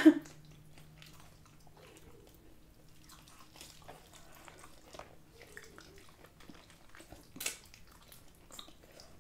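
Two people chewing and biting into crispy fried chicken wings: quiet mouth sounds with small crunches and smacks, and one sharper bite about seven and a half seconds in.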